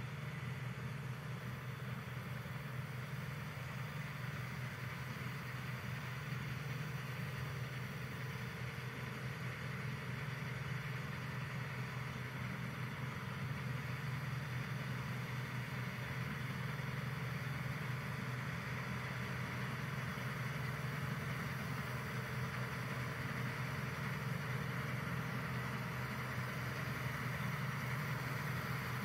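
Claas Dominator 58 combine harvester running steadily at work, its engine sound growing slowly louder as it comes closer.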